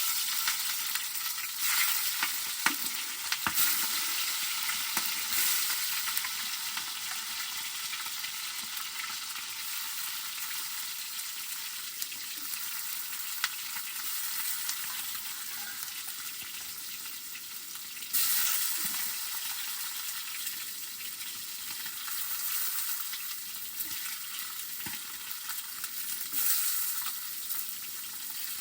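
Food sizzling as it fries in a pan, a steady hiss with scattered light clicks. It gets louder about 18 seconds in.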